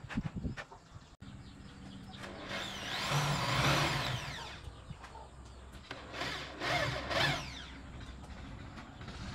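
A small motor running in two spells, its whine wavering up and down in pitch, over a steady low hum, after a few knocks at the start.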